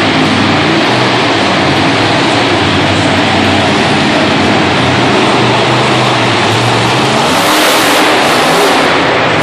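Monster truck engine running loud and revving, with a stronger surge of revving near the end.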